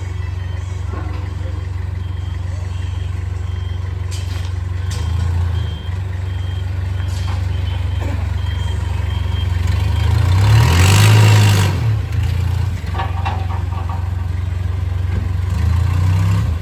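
A vehicle engine running steadily with a low hum. From about three seconds in to about nine seconds there is a run of short, evenly spaced high beeps, and a louder rush of noise comes about ten seconds in.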